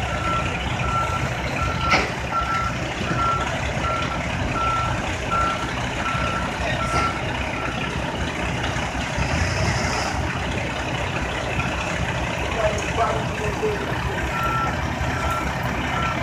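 A truck's reversing alarm beeps at even spacing over the low running of truck engines. The beeping stops for about three seconds late on, then starts again. A single sharp knock comes about two seconds in.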